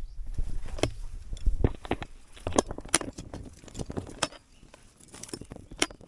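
Irregular metallic clinks and knocks of climbing gear on a rappel rope, with boots scuffing and tapping against the rock face during a rope descent down a cliff.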